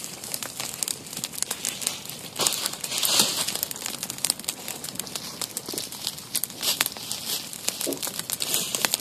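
Small fire burning through dry leaf litter, crackling with dense, irregular snaps that grow busier about three seconds in.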